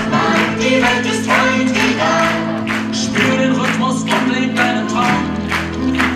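Song with several singing voices over a steady beat.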